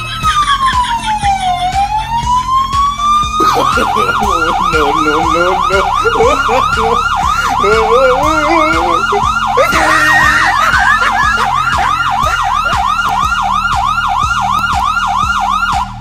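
Electronic police-style siren played loud through a small portable speaker: a slow wail rising and falling for the first three seconds or so, then a fast yelp of about three sweeps a second that cuts off abruptly at the end.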